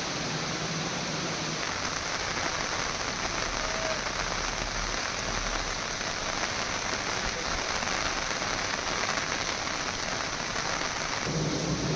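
Steady hiss of rain falling, with no speech. Its tone shifts slightly about a second and a half in and again near the end.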